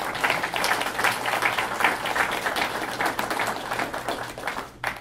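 Audience applauding: dense clapping that starts at once and dies away near the end.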